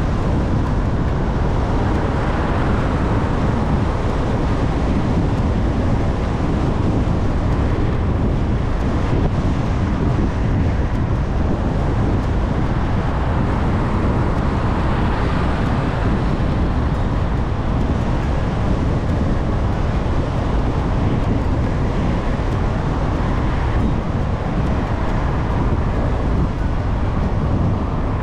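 Loud, steady wind-like rumble and hiss, heaviest in the low end, with no distinct events.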